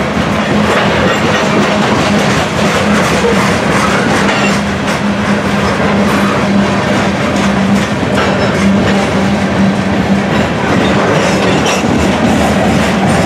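Freight train of covered hopper cars rolling past close by: a steady rumble of steel wheels on rail, with clicks as the wheels cross rail joints.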